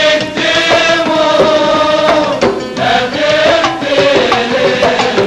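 Kuwaiti folk music from a performing troupe: a sung melody with long, wavering held notes over steady hand-drum percussion.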